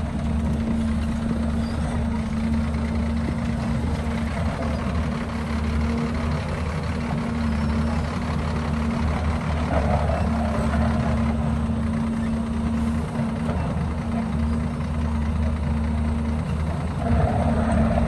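Heavy equipment engine running steadily at an even pitch.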